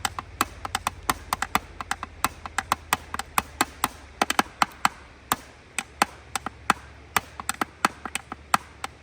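Rapid, irregular sharp clicks and taps, several a second, from hard objects knocking together.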